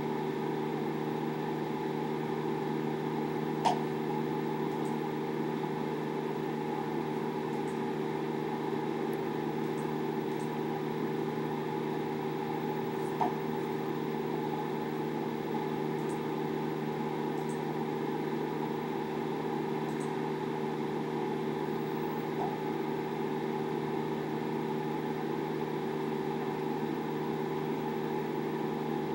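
A steady mechanical hum that does not change, with a faint click now and then.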